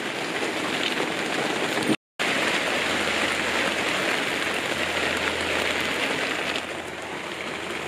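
Heavy rain falling on a tent's fabric and plastic windows, heard from inside the tent, as a steady hiss. The sound cuts out completely for a moment about two seconds in.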